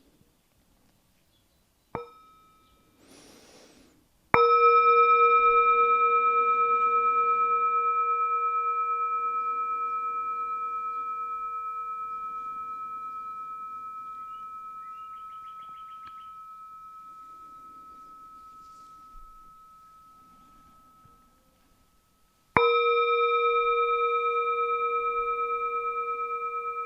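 Meditation bell, a bowl-shaped bell, first touched lightly about two seconds in, then struck: a clear multi-tone ring with a slight wavering that fades slowly over about eighteen seconds. It is struck a second time near the end and rings on, sounded as a cue to stop and settle in meditation.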